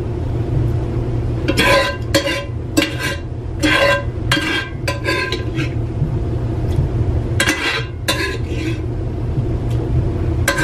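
Spoon scraping and clanking against a cast iron skillet as food is scooped out, a string of ringing metallic clanks in two bunches with a lull in the middle, over a steady low hum.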